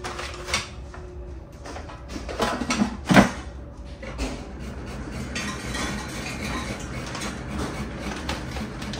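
Clattering of an air fryer's plastic basket being loaded and slid shut, with a sharp clunk about three seconds in as it locks into place. From about five seconds in, a steady whir of air as the air fryer runs.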